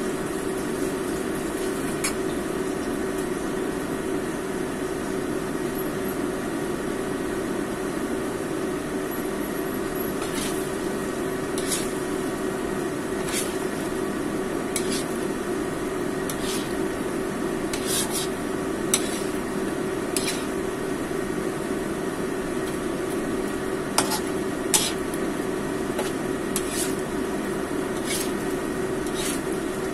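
Metal spatula stirring fish and long beans in a non-stick wok, clicking and scraping against the pan repeatedly from about ten seconds in. A steady hum runs underneath.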